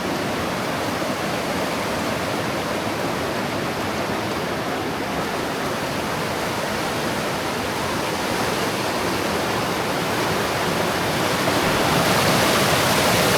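Waterfall rushing steadily into a pool, a dense even roar of falling water that grows a little louder near the end.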